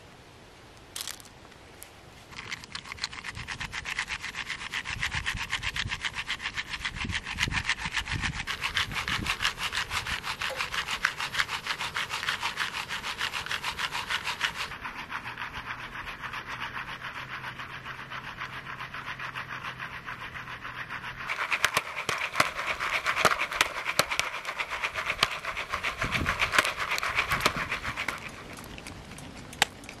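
Popcorn popping in a foil-pan stovetop popcorn kit over a portable butane stove: a dense run of quick crackling clicks starts about two seconds in, is heaviest in the last several seconds and dies away shortly before the end.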